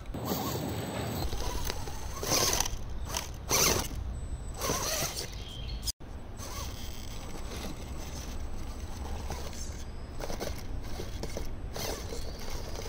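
RC 4WD Bully II MOA rock crawler's motor-on-axle drivetrain whirring in uneven bursts as it climbs, with its tires scraping and scrabbling on rough stone. The two loudest surges come about two and a half and three and a half seconds in.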